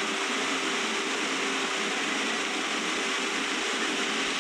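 Steady room tone: an even hiss with a faint low hum underneath, no words and no distinct events.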